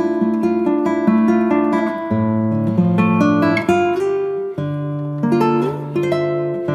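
Background instrumental music on acoustic guitar: picked notes over held low bass notes.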